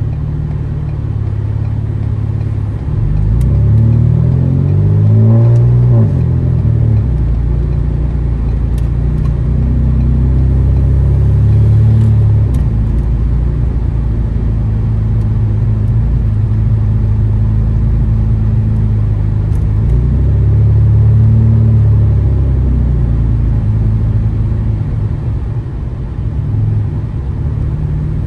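Straight-piped, catless exhaust of a 2015 Ford Taurus Limited on the move, heard from the car. The engine rises in pitch as the car accelerates about three seconds in, then drones steadily while cruising, swelling louder a couple of times.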